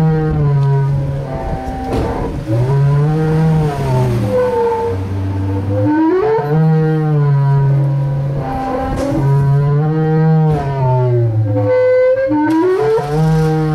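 Electronic tones from a swinging pendulum loudspeaker, gliding up and down in pitch in slow arcs every few seconds over a low drone that shifts between two pitches.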